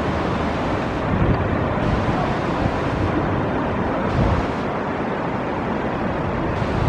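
Steady rush of river rapids, with wind buffeting the microphone about a second in and again around four seconds in.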